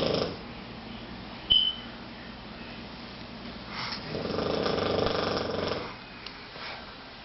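A sleeping pet snoring: the tail of one snore right at the start, then one long snore of about two seconds from about four seconds in. A short, high-pitched beep comes about one and a half seconds in and is the loudest sound.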